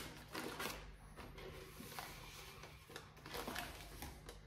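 Faint rustling and light scraping of decoupage paper being smoothed down onto wet lacquer, with a few soft handling clicks.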